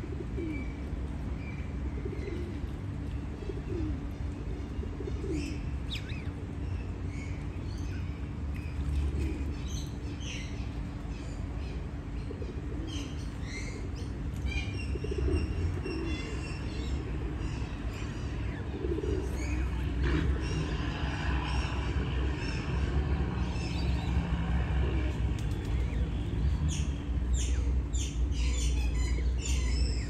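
Birds chirping and calling in many short notes, with some lower gliding calls, over a steady low rumble.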